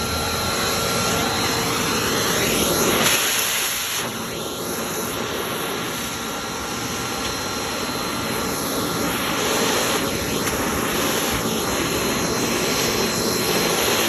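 Wet/dry shop vacuum running steadily, its hose nozzle sucking spotted lanternflies off tree bark. The rush of air shifts in tone a few times as the nozzle moves over the bark.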